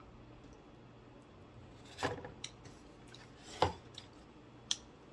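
Close-miked eating sounds from someone eating fried food with her fingers: a few short, sharp crunches and clicks, the loudest about two seconds in and near four seconds in, over a faint steady hum.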